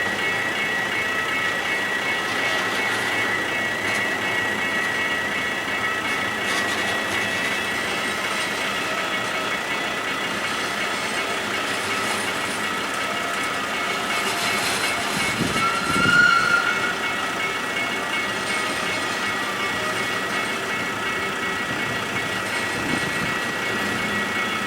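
Rhaetian Railway ABe 8/12 electric train with panoramic coaches passing over a level crossing, with steady high-pitched tones over the running noise. About two-thirds of the way through there is a brief louder sound with a short rising tone.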